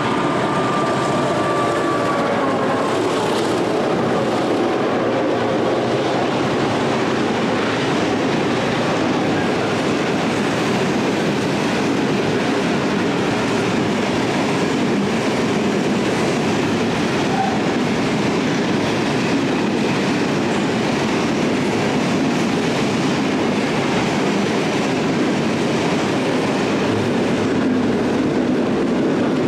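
A diesel-hauled grain train running through at speed. The locomotive horn falls slightly in pitch and fades out in the first few seconds as the lead locomotive passes, then a steady rumble and clatter of loaded grain hopper wagons rolling by.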